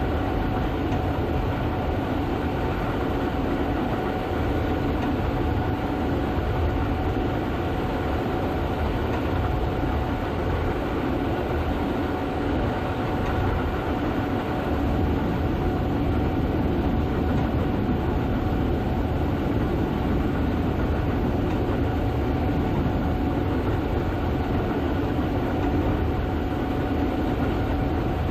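Gleaner S98 combine harvester running steadily while harvesting soybeans: a constant low mechanical rumble with a steady whine over it.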